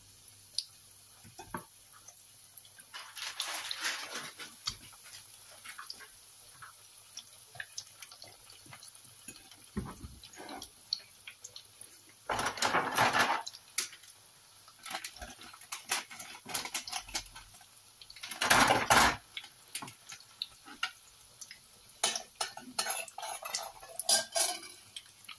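Breaded pork cutlets frying in shallow oil in a nonstick pan: a light, crackling sizzle with scattered pops, and three louder bursts of sizzle about a second long. A fork clinks against the pan now and then as the cutlets are laid in and settled.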